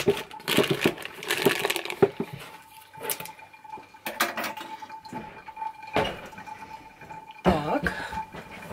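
Thin plastic piping bag crinkling as it is pushed into a tall glass and folded over the rim, followed by a few scattered clicks and knocks, with one louder thump near the end.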